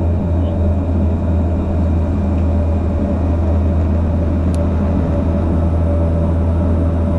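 Let 410 UVP-E20's GE H80 turboprop engine and propeller running at a steady power, heard from inside the cabin beside the engine as a loud, even drone with a deep hum.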